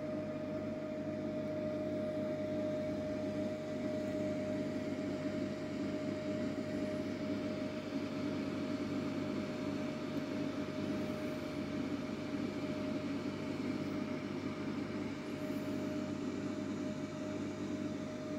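Steady hum of aquarium pump equipment running, with a constant mid-pitched tone over an even background noise.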